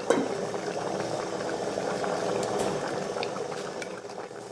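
Water boiling in a stainless-steel food steamer, a steady bubbling hiss, with a short knock of the metal lid being set on just after the start.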